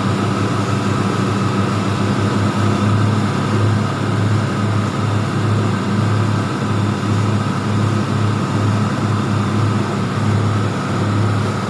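Engine running flat out at full revs under test, a loud, steady low drone that swells and eases slightly.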